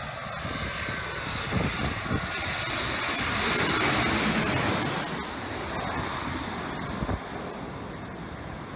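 Jet airliner on its landing approach, passing low overhead. The engine noise swells to a peak about halfway through, then fades as the plane moves away toward the runway.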